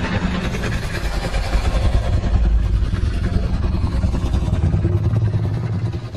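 Fan-made Godzilla sound effect: one long, loud, low rumbling sound with a rough, engine-like grind, fading out near the end.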